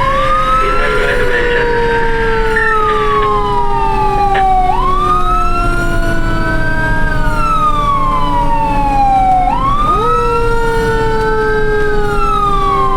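Several fire truck sirens wailing together, each rising and falling slowly in pitch, out of step with one another, over a steady low rumble.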